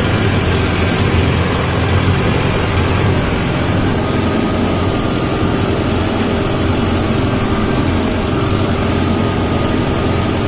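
Mahindra Novo 755 DI tractor's four-cylinder 3800 cc diesel engine running steadily under load while pulling a cultivator through the soil, heard from the driver's seat.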